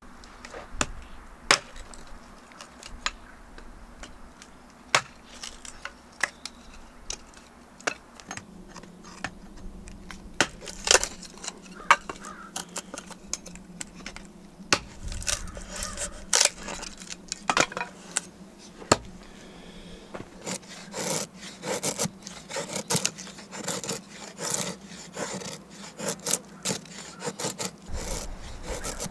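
Hatchet chopping and splitting kindling on a wooden chopping block: irregular sharp cracks and knocks of the blade striking and splitting wood, coming faster and closer together in the last third.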